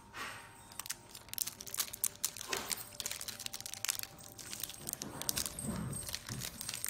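Crinkling and tearing of a snack bar's wrapper as small fingers peel it open, a dense run of irregular crackles.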